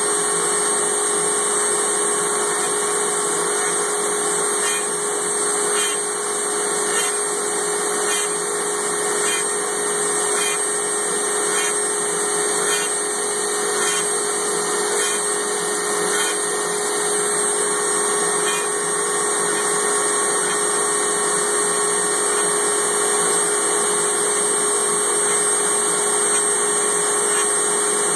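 CNC router spindle running steadily while cutting a halftone pattern of dots into a board, with a faint tick repeating about once a second as it plunges each hole.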